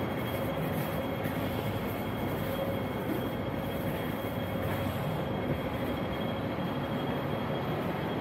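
Light rail tram running along street track, a steady rumble with a faint steady whine over it.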